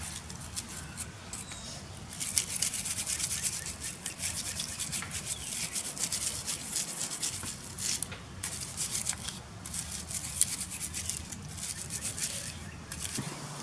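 A wire brush scrubbing a brake caliper guide pin lying on a paper plate, in quick repeated back-and-forth strokes to clean grime off after a spray of brake cleaner.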